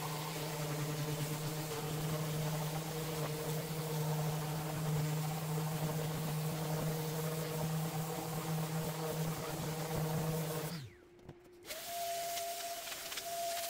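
Random orbit sander running steadily with 120-grit paper over painted, shellac-sealed MDF, taking the paint off the carved ridges; about eleven seconds in it winds down and stops. After a short pause a vacuum starts, its hose sucking up the sanding dust with a steady hiss and a higher hum.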